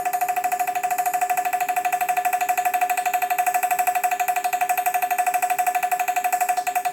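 A steady electronic buzzing tone, pulsing rapidly and evenly, that cuts off suddenly at the very end.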